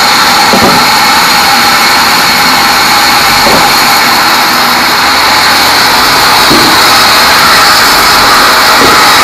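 Band sawmill cutting teak wood: a loud, steady hiss and high whine from the blade and machine.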